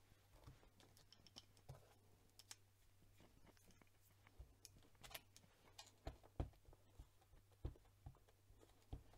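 Faint plastic clicks and taps: a clear acrylic stamp block with a leaf stamp being handled and tapped onto an ink pad to ink it. The taps come in an irregular string, a few of them stronger in the second half, over a low steady hum.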